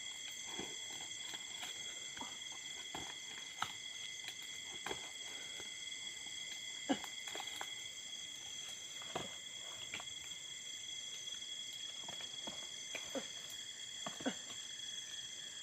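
Night insect chorus: a steady, high-pitched chirring at several pitches at once, with scattered soft clicks and snaps.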